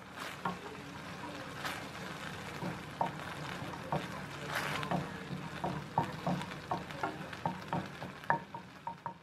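A thick sauce sizzles in a nonstick frying pan while a wooden spoon stirs it. The spoon knocks lightly against the pan, more and more often in the second half, about three times a second.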